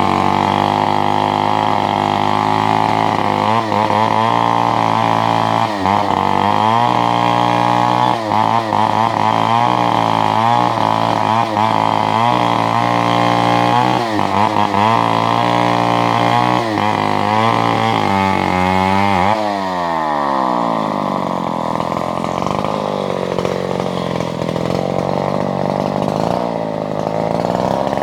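Chainsaw engine running at high revs while cutting wood, its pitch wavering under load. About two-thirds of the way through, the revs fall off sharply and the saw runs on at a lower, uneven speed.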